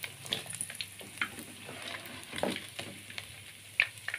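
Hot oil in a wok sizzling after frying catfish, with scattered sharp pops and crackles while the fried pieces drain on a perforated steel skimmer above it.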